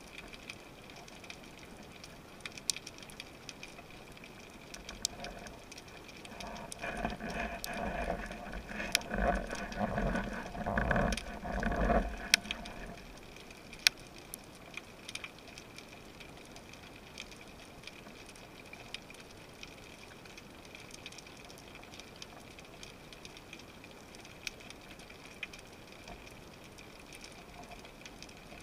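Underwater ambience picked up through a camera housing: a steady faint hiss with scattered sharp clicks. From about 6 to 12 seconds in, a louder uneven rumbling swells and fades.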